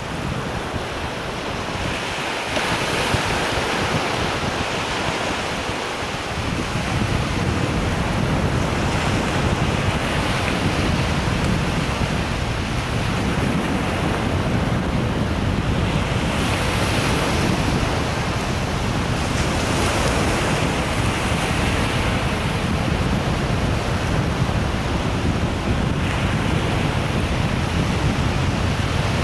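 Ocean surf breaking on a beach, the wash swelling and easing every few seconds. Wind rumbles on the microphone, growing stronger about six seconds in.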